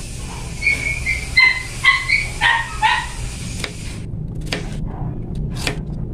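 A dog whimpering and yipping in a quick run of short high whines. Then a few sharp knocks of a kitchen knife chopping chayote on a plastic cutting board.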